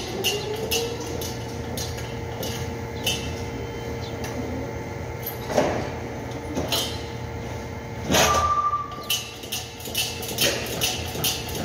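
Factory work noise: a steady machine hum that rises in pitch over the first second, with quick runs of light clicks near the start and end and a few sharp knocks in the middle. The loudest is a clatter about eight seconds in, followed by a brief ringing tone.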